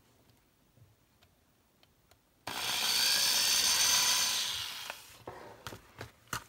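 Electric drill boring into the rivet of a diecast toy car, starting suddenly about two and a half seconds in, running steadily for about two and a half seconds and then winding down. A few small clicks follow near the end.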